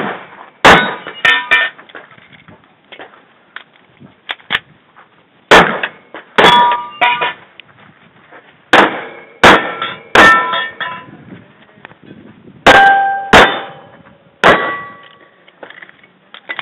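Close-range shots from a Kimber 1911 pistol, about nine in all: one about a second in, then, after a pause of a few seconds, the rest in quick pairs and singles. Each shot is followed by the clanging ring of a struck steel plate target.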